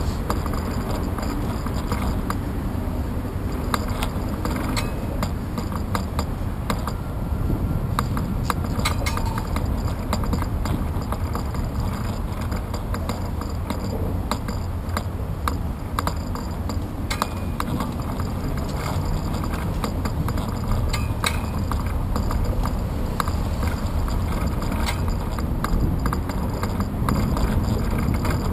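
A bicycle rolling on a concrete path, heard from a handlebar-mounted GoPro: steady wind and tyre rumble, with frequent small clicks and rattles from the bike and camera mount over the bumps.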